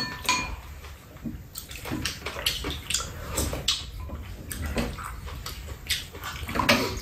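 Spoons and chopsticks clinking and scraping against ceramic bowls, a cooking pot and a metal tray as two people eat, in irregular short clicks. A brief ringing clink comes at the very start.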